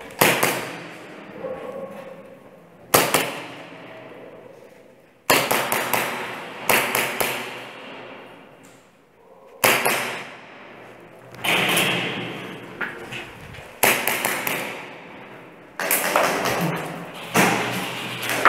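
Airsoft guns firing in a concrete hall: about ten single sharp cracks at uneven intervals of one to three seconds, each leaving a long echo.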